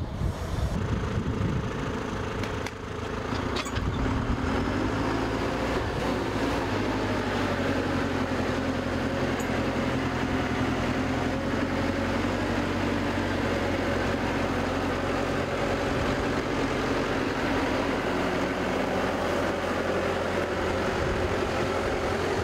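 Heavy vehicle engine idling steadily, with a few short knocks about three seconds in.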